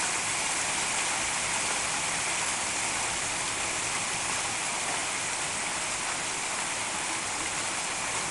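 Heavy downpour of rain and hail in a thunderstorm: a steady, dense hiss that holds level throughout.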